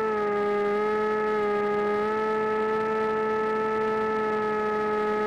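AXN Floater-Jet RC plane's electric motor and pusher propeller, a steady whine picked up by the onboard camera. The pitch drops slightly at the start, then holds level.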